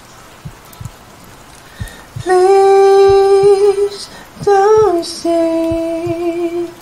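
Unaccompanied male singing voice holding long sustained notes without words, starting about two seconds in after a near-quiet opening. Underneath, a slow heartbeat thumps steadily over faint steady rain.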